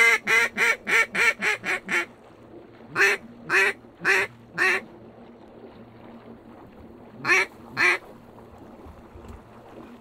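Mallard duck call blown in hen-mallard quacks: a fast run of about eight quacks, then four slower ones, then two more near the end.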